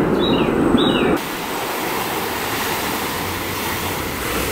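About the first second, a rough rubbing noise with two short high chirps; then an abrupt change to the steady wash of ocean surf.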